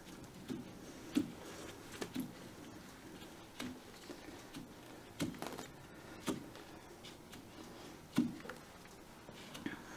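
Wet acrylic paint flicked from gloved fingers onto a canvas: a few faint, irregular soft taps and splats over a quiet background.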